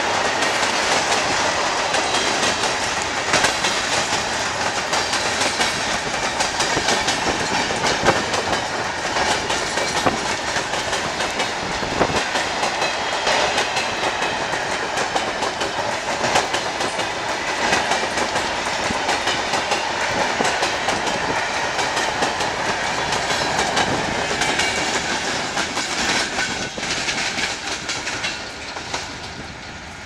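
Empty open steel freight wagons rolling past close by, their wheels clattering over the rail joints with a steady run of sharp metallic clicks and knocks. The clatter fades over the last few seconds as the end of the train draws away.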